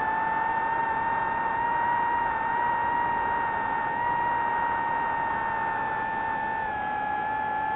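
FPV quadcopter's electric motors whining on a steady high pitch over a hiss of rushing air, the pitch drifting slightly with throttle and dipping a little near the end.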